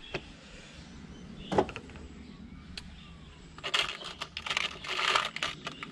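Small clicks and rattles of throttle-linkage parts and hand tools being handled during fitting: a single sharp click about a second and a half in, then a run of light clicking and rattling for about two seconds near the end.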